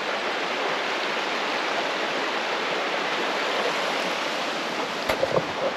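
Steady rush of a river's flowing water, with a few knocks near the end.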